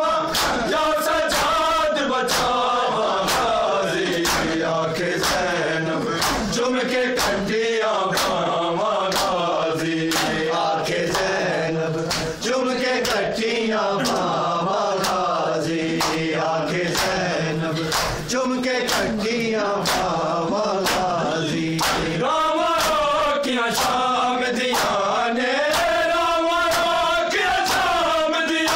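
Crowd of men chanting a Shia mourning lament (noha) in unison, with sharp rhythmic slaps of open hands on bare chests (matam) keeping the beat.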